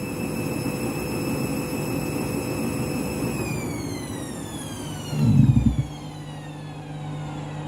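Candy washing machine in a sudslock, its drum motor whining steadily at spin speed; about three seconds in the whine starts falling as the drum slows down, its spin cut short by the suds. Around five seconds in there is a loud, brief rumbling thump, after which a steady low hum carries on.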